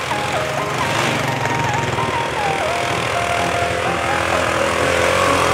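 An ATV engine runs steadily under background music, whose melody moves in stepped, held notes.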